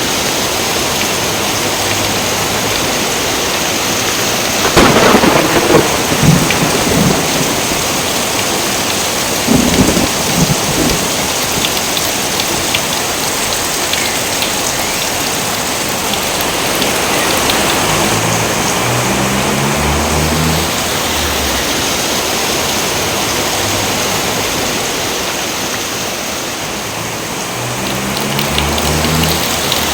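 Steady heavy rain, with two loud claps of thunder rumbling about five and ten seconds in.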